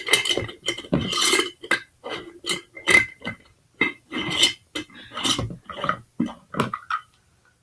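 Glass mason jar being handled, with a string of irregular clinks and knocks against a hard surface that stop near the end.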